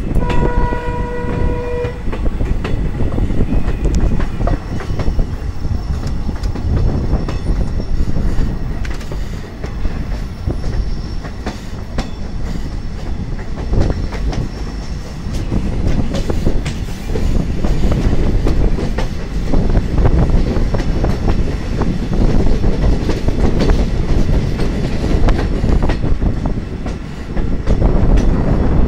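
Passenger train running, heard from an open coach window: a steady rumble with the clickety-clack of wheels over rail joints. It opens with a single horn blast of about two seconds, and a faint high wheel squeal comes and goes as the train rounds a curve.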